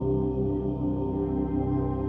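Ambient background music: a steady drone of sustained, held tones.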